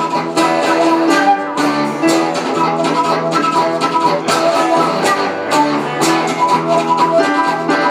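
Live acoustic band playing: a flute holds melody notes over strummed acoustic guitars keeping a steady rhythm.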